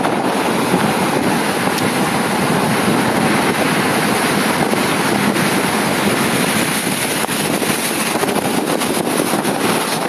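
Storm surf: big waves breaking and foaming water washing over a rocky shore, a loud, steady rush, with wind buffeting the microphone.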